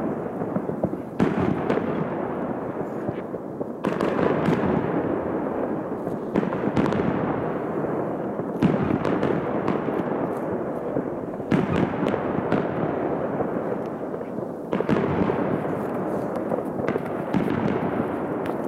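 Aerial fireworks going off without pause: a sudden loud bang every two to three seconds, each followed by a long crackling hiss, with a steady popping and banging all around.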